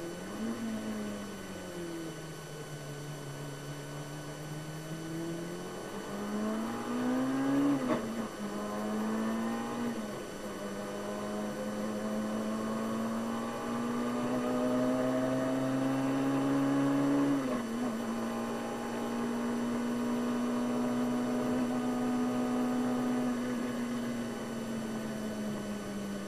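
Brabham BT21 historic Formula 3 car's rebuilt one-litre engine, heard from the cockpit on a lap. The pitch sinks as the car slows through a bend, then climbs under acceleration, with sudden drops at gear changes about eight and seventeen seconds in, and holds fairly steady at speed near the end.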